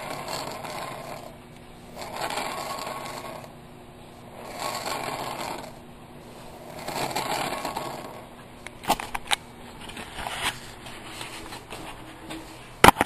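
Metal lathe turning a large cast-iron pulley slowly in a four-jaw chuck while it is checked with a dial indicator: a mechanical whir that swells and fades four times, about every two and a half seconds. A few sharp metal knocks follow in the last few seconds, the loudest near the end.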